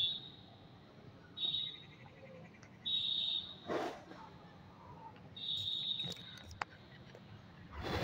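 Paper pages of a thick paperback book being handled and turned, with a rustle a little before the middle and a louder one at the end. A short, high chirping call sounds four times in the background.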